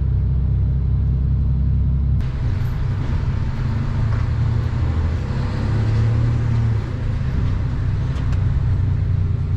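A lorry's engine and road noise as a steady low drone while it crawls along at low speed. The engine note shifts about two seconds in.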